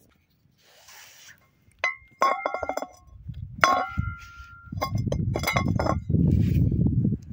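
Metal frying pan clinking and clanking against the rocks and wood of a campfire as it is set in place, with a few sharp ringing strikes, the loudest about three and a half seconds in. A low rumbling noise comes in about five seconds in.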